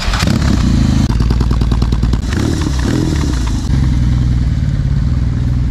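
BMW R18's 1,802 cc boxer twin running loud through a custom 2-into-2 full-system exhaust, with a deep, pulsing note. The pitch shifts with the throttle in the middle, then settles into a steady run as the bike moves off.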